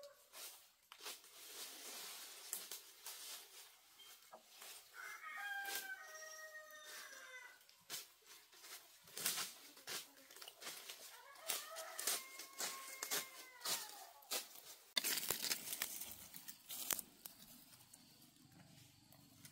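A rooster crowing: short calls about five seconds in, then one long arched crow in the middle that lasts a couple of seconds. Scattered sharp knocks and clicks throughout, thickest about three quarters of the way through.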